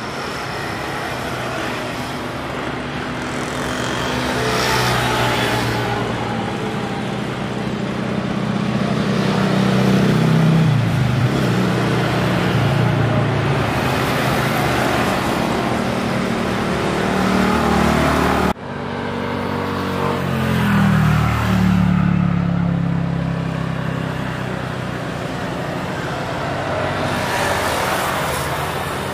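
Jet airliners moving along the runway. First a Boeing 737-800's turbofans, then, after a sudden cut, an Airbus A320's. Each builds up and then drops in pitch as it passes.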